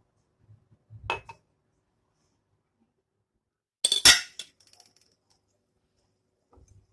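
Kitchenware clinking: a light knock about a second in, then a louder cluster of sharp clinks at about four seconds, with a faint soft knock near the end.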